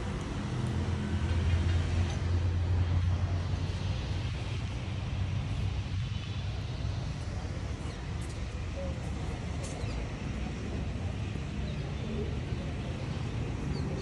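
Steady low engine rumble, louder for the first few seconds and then even.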